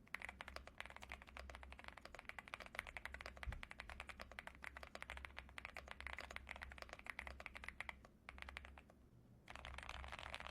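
Mechanical keyboard fitted with WS Morandi linear switches, factory-lubed, with POM housings and a UPE stem, being typed on quickly in a steady stream of keystrokes: the creamy switch sound. The typing stops about eight seconds in.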